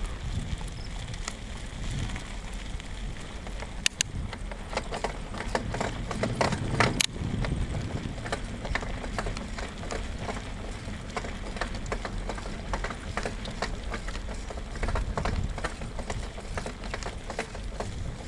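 Mountain bike rolling over a dirt and gravel trail: tyres crunching with a low rumble and many rattling clicks from the bike as it bounces, with two sharper knocks about four and seven seconds in.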